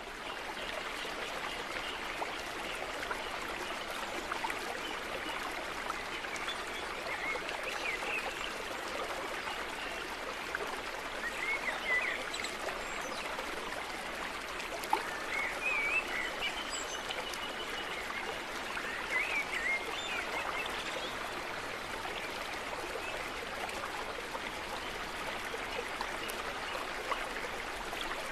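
Steady rushing of a flowing stream, like a nature-sound background track. A few brief wavering higher calls rise over it now and then.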